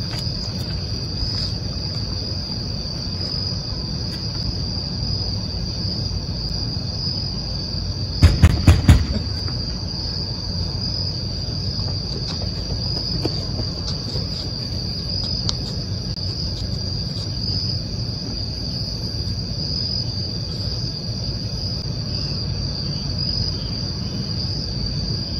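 Crickets chirping in a steady, unbroken high trill over a low rumble. About eight seconds in, there is a quick run of four or five loud thumps.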